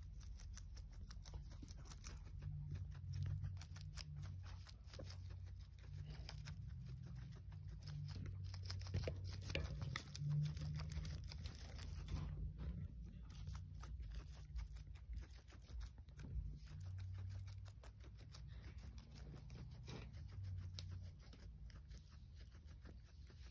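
Guinea pig chewing and tearing lettuce leaves: a fast, irregular run of small crunching clicks, over a faint low hum.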